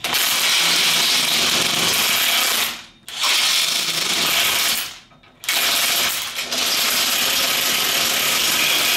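DeWalt cordless impact wrench hammering on leaf-spring U-bolt nuts in three long runs, with brief pauses about three and five seconds in. The nuts are being drawn down to pull the spring onto its locating pin and are getting rounded off.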